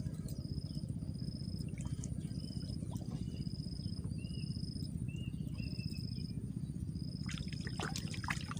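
An insect repeats a high, thin buzzing trill in short phrases about once a second, over a steady low rumble of outdoor background noise. A few faint clicks come near the end.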